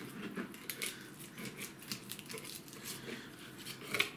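Kitchen knife cutting a herring's fillets off the backbone on a plastic cutting board: soft scrapes and small clicks of the blade against bone and board, the loudest just before the end.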